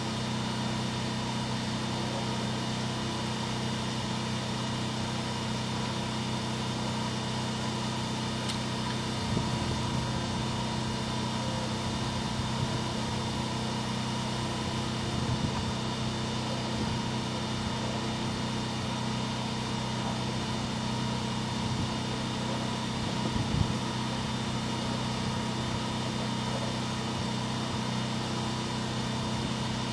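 Drain-cleaning machine running steadily with an even motor hum while cutting roots in a sewer line, with a few faint knocks along the way.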